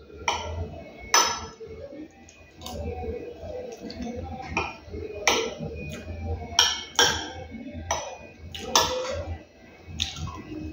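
A fork clinking and scraping against a metal plate of food, in irregular sharp clinks a second or so apart, with chewing between them.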